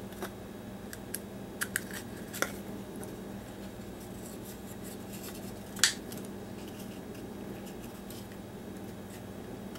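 Handling noise from a plastic battery adapter plate and a small wooden block as wires are fed through drilled holes: several light clicks and taps in the first few seconds and one sharper click a little before six seconds, over a steady low hum.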